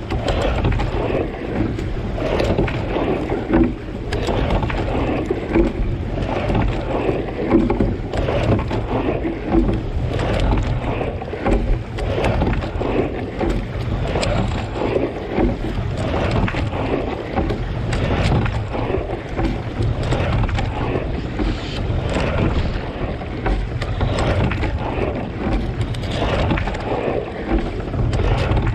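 Water rushing and splashing along a racing single scull as it is rowed, with oar blades working the water and wind on the microphone.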